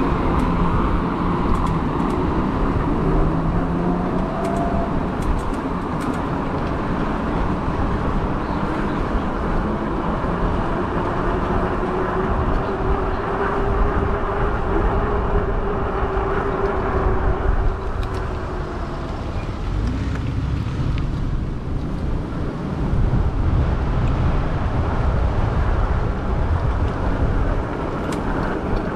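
Steady wind and road noise from a moving e-bike ride, heaviest in the low end, with traffic sounds around it. A faint hum swells and fades midway.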